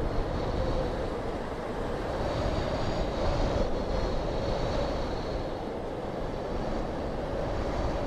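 Steady rushing wind mixed with the wash of breaking sea surf, swelling gently and easing off with no clear breaks.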